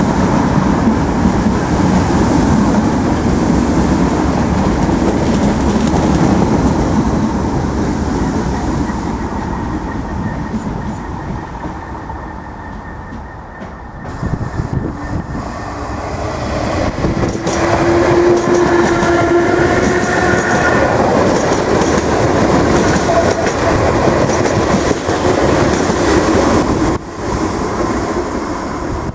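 Irish Rail 8100-class DART electric train running past and fading into the distance. After a sudden change about halfway, a second DART train is heard approaching, with a held pitched tone for a few seconds along the way.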